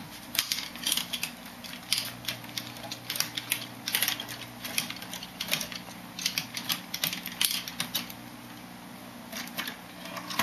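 K'nex Alive phoenix model flapping its wings: rapid, irregular clicking and rattling of the plastic K'nex parts, with a steady low hum from about a second in.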